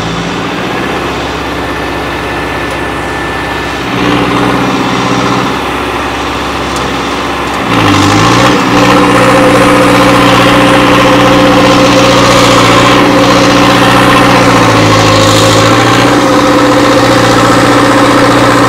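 Modified, turbocharged Hindustan 60 tractor diesel engine running steadily. It swells briefly about four seconds in. About eight seconds in its pitch dips and recovers, and it then runs louder and steady, with another brief dip in pitch near the end.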